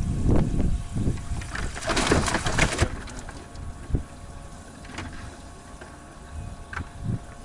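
Water splashing briefly at the side of a boat, about two seconds in, over low wind rumble on the microphone, followed by a few light knocks.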